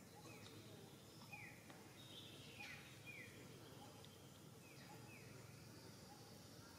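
Faint outdoor background in which a bird repeats short chirps that slide down in pitch, roughly one a second, some in quick pairs.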